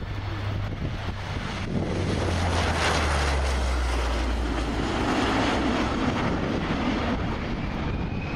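Lockheed C-130H Hercules's four Allison T56 turboprop engines and propellers on a low pass, a low propeller drone under a loud roar that swells as it passes close, with the drone falling in pitch as the aircraft goes by and climbs away.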